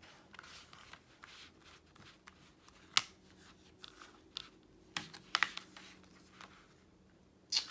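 Plastic Blu-ray case and its paper insert being handled: scattered light clicks and taps, with a sharper click about three seconds in and a few more around five seconds.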